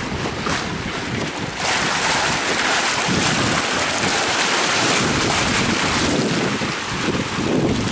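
Water rushing and hissing past the hull of a Norseboat 17.5 sailboat surfing fast downwind, mixed with wind buffeting the microphone. The rushing gets louder about a second and a half in, and gusts of wind rumble near the end.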